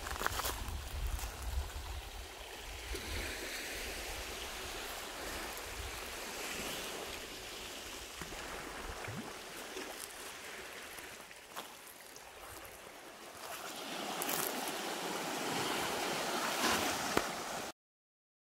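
Rushing water, with a low rumble at first, swelling over the last few seconds before the sound cuts off abruptly.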